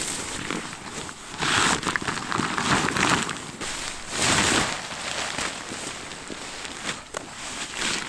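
Crinkly rustling of nylon tent fabric and gear being pulled out and spread over the ground, in several uneven swishes that are loudest around the middle.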